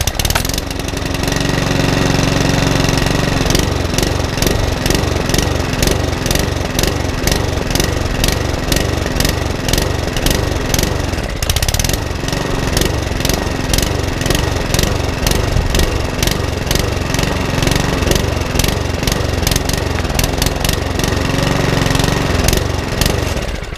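Mountfield HP164 mower's RS100 100cc overhead-valve engine running unevenly, hunting, its speed wandering up and down, then cutting off right at the end. The mechanic puts the hunting down to a fuel delivery problem, since it runs a little better when the primer bulb is pushed.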